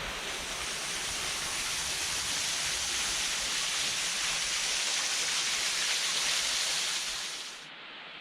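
Waterfall: water falling and splashing in a steady rushing hiss, which drops away abruptly near the end.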